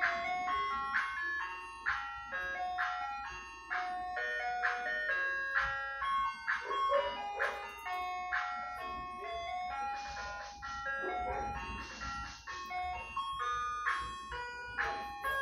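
Ice cream truck's chime jingle playing a looping melody of bell-like notes, about two to three notes a second, with a rougher noisy stretch about two-thirds of the way through.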